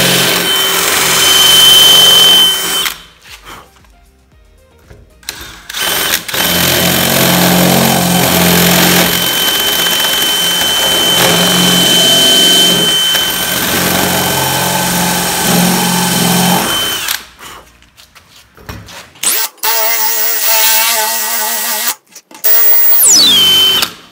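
Cordless drill with a 5/16-inch brad-point bit running in a wooden tenon, the bit rocked side to side to elongate the hole into a slot for the breadboard end's sliding pin. It runs in a short burst, stops, then runs again for about eleven seconds with a steady high whine. A different wavering sound takes over in the last few seconds.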